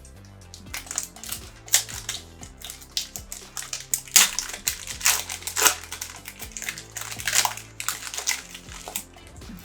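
Foil wrappers of trading card packs being torn open and crinkled, an irregular run of crackles and rips, over background music.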